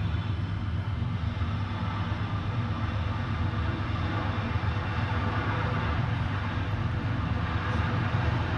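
Steady low roar with a hiss over it, from a ruptured gas line burning as a large fire.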